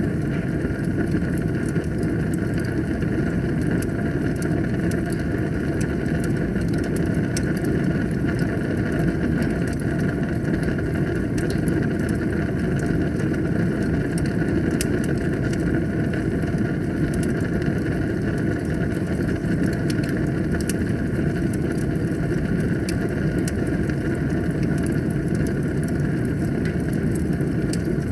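Wood fire burning in a fireplace: a steady low rush of flames with frequent small crackles and pops scattered throughout.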